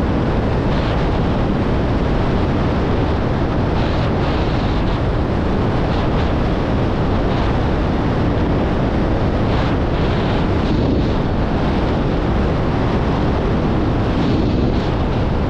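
Strong wind rushing over the microphone of a camera on a windfoil rig travelling at speed, a steady loud buffeting, mixed with the hiss of water passing the board.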